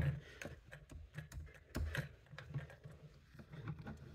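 Light handling noises: irregular small knocks and rubbing as a plastic bottle is wiped with a cloth and moved about.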